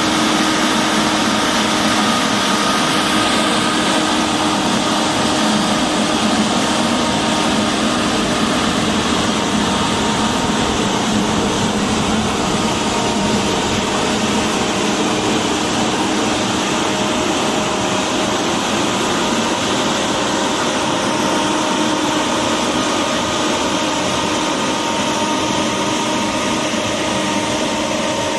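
Heavy road-construction machinery running steadily: a continuous engine drone with a few steady tones held through it.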